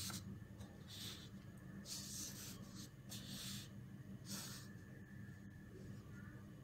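Ballpoint pen and paper: about five short, faint scratches roughly a second apart as the pen writes and the sheet is shifted under the hand.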